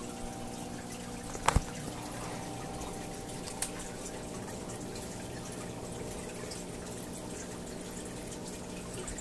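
Aquarium filter water trickling and dripping steadily over a steady hum. A sharp double click sounds about one and a half seconds in and a lighter one a couple of seconds later.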